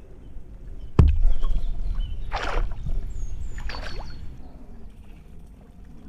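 A sharp thump about a second in, then two short splashes of water a little over a second apart.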